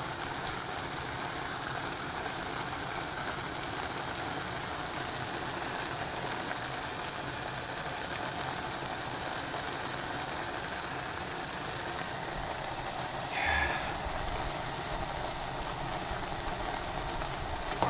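Instant ramen boiling in a saucepan on a gas hob: a steady hiss and bubbling from the pot and burner, briefly louder about 13 seconds in.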